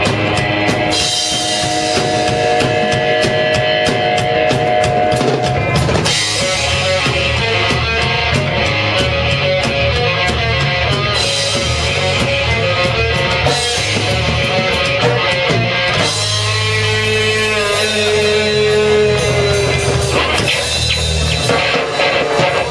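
A rock band playing live, with a drum kit keeping a steady beat under guitar.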